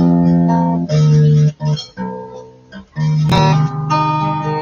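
Acoustic guitar strummed, a few ringing chords changing about once a second, with one sharp percussive hit on the strings about three seconds in.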